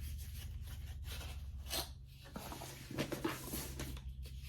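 A blush compact and its packaging being handled and opened: soft rustles, then a short run of light clicks, over a steady low hum.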